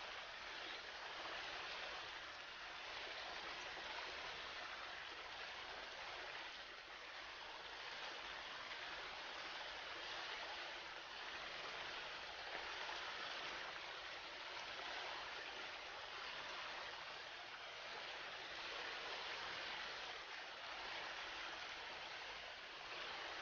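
River water flowing steadily: an even, unbroken wash of water noise with no distinct bird calls standing out.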